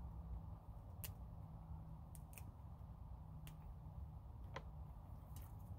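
Faint scattered clicks and ticks of fingers and long fingernails plucking petals off marigold flower heads, over a low steady hum, with one short falling squeak about four and a half seconds in.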